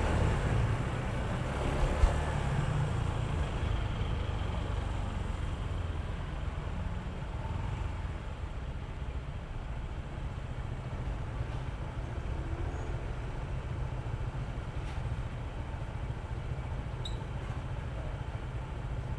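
Honda ADV160 scooter's single-cylinder engine running steadily under way, mixed with a low road and wind rumble. A single sharp knock comes about two seconds in.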